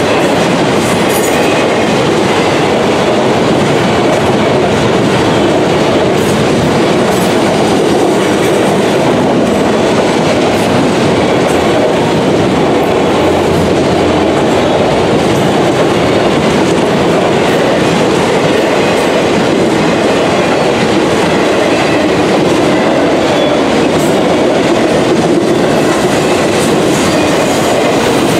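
A freight train of autorack cars rolling through a grade crossing, its wheels and cars making a loud, steady rumble and rattle on the rails.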